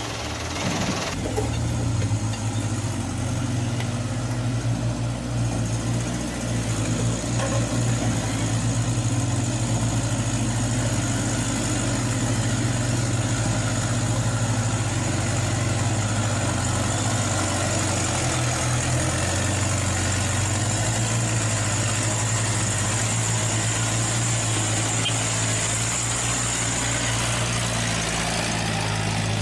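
Diesel truck engine idling steadily, the engine sound given to a model Mitsubishi Canter dump truck, with a thin high whine over most of it.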